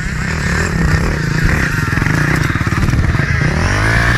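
Dirt bike engine running hard under load as the motorcycle climbs a steep grassy slope, its pitch dipping and rising again near the end as the rider works the throttle.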